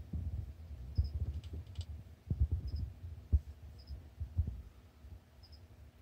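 Irregular low thumps and rumble from a handheld phone being moved about. Faint, short, high double chirps recur every second or two.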